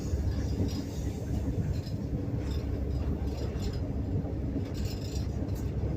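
Passenger train running, heard from inside a compartment car: a steady low rumble of wheels on the rails, with a few faint clicks about halfway through and again near the end.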